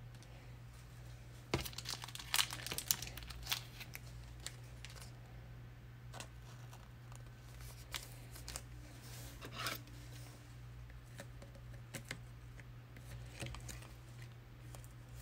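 Foil trading-card pack wrapper being torn open and crinkled as cards are handled, in a burst of crackling about two seconds in and shorter bursts around ten seconds and near the end.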